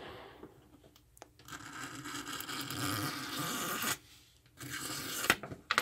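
Razor blade scraping the solder mask off a copper trace on a printed circuit board: one steady scrape of about two and a half seconds, then a shorter one near the end.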